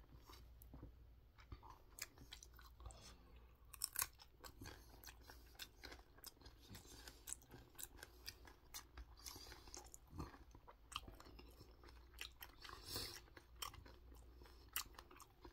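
A person biting and chewing a raw green Cheongyang chili pepper: faint, irregular crunching and mouth clicks.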